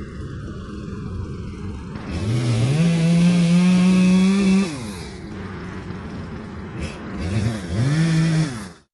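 Echo two-stroke chainsaw engine idling and revving up twice: a long high rev of about two seconds, then a shorter one, dropping back to idle between them. The sound cuts off suddenly near the end.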